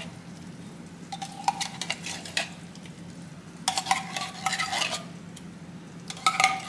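A metal spoon scraping and clinking inside a metal soup can as thick condensed cream soup is scooped out, in three bouts.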